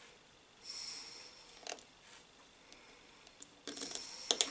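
Small metallic clicks from fiddling a crimped wire terminal and nut onto a motor's terminal post by hand. There is a single click about a second and a half in and a quick cluster of sharper clicks near the end, which is the loudest part. A short soft hiss comes about a second in.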